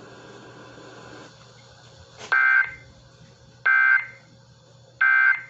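Emergency Alert System end-of-message signal: three short bursts of SAME data tones, about 1.4 s apart, starting about two seconds in. They mark the end of the relayed flash flood warning.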